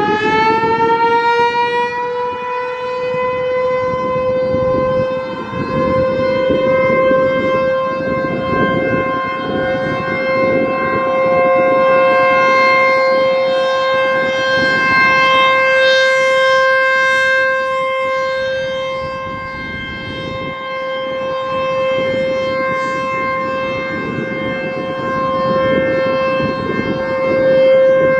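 American Signal T-128 electromechanical outdoor warning siren sounding its monthly test: it finishes winding up in the first couple of seconds, then holds one steady wail whose loudness swells and fades every several seconds.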